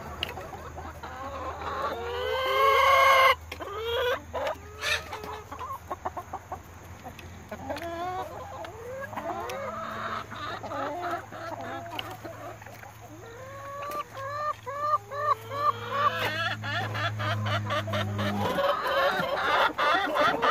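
Chickens clucking close by: about two seconds in, one loud drawn-out rising call that breaks off suddenly, then a long run of short clucks. Near the end comes a rapid run of light ticks.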